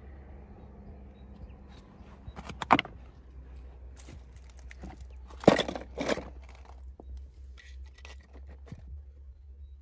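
Handling clatter of small hard objects, toy die-cast cars among stones: scattered light clicks, with a louder knock about two and a half seconds in and two more around five and a half and six seconds.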